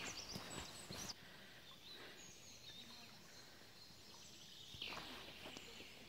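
Footsteps crunching on the leaf litter of a forest path for about the first second, stopping suddenly. Then quiet forest ambience with a couple of faint bird calls.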